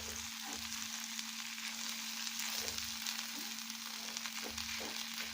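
Ground ginger and turmeric sizzling steadily in hot ghee in a pan, with a spoon stirring through it now and then.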